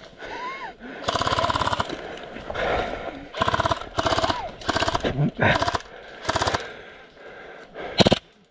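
Airsoft guns firing on full auto: a long burst about a second in, then several short bursts, and a single sharp shot near the end.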